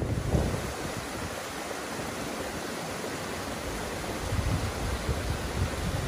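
Steady rushing hiss of a small mountain stream tumbling between boulders. Low gusts of wind buffet the microphone near the start and again from about four seconds in.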